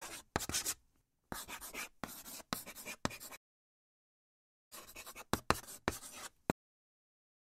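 Marker writing: short, scratchy strokes with sharp ticks, in a run of about three seconds, then, after a pause of about a second, a second run of under two seconds.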